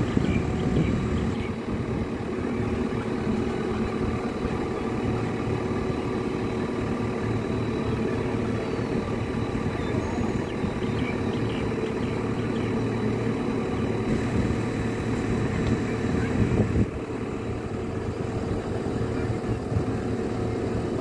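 Diesel engine of a JCB telehandler running steadily under load while its hydraulic boom raises and extends a bucket full of bricks.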